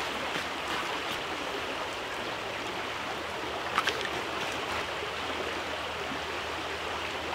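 Creek water running steadily over rocks and shallows, with a brief click about four seconds in.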